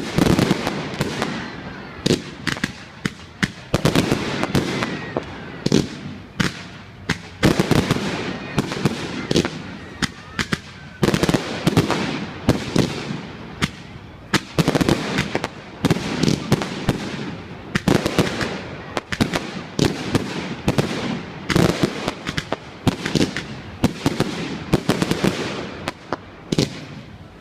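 Fireworks going off in rapid succession: a dense run of sharp bangs and crackling clusters, with a few faint whistles.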